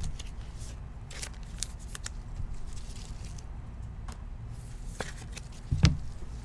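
Faint rustling and light clicks of trading cards and packs being handled, over a low steady hum, with a soft thump near the end.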